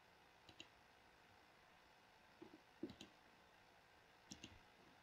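Faint computer mouse clicks, a few pairs of short clicks spread over otherwise near silence.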